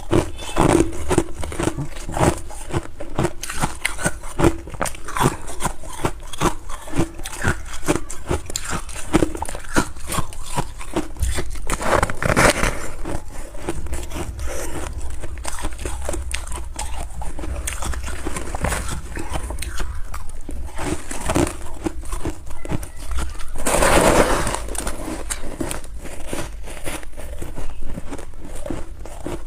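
Close-up crunching of freezer frost and ice being bitten and chewed: a dense, irregular run of crisp crackles, with two louder crunchy bites, one about halfway through and one near the end.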